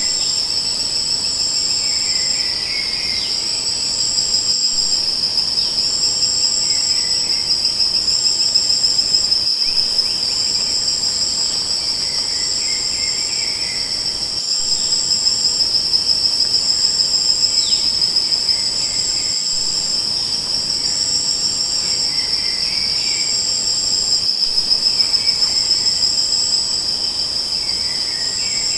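Insects, crickets among them, trilling without a break in a dense chorus. A second, higher-pitched insect pulses on and off about once a second over it.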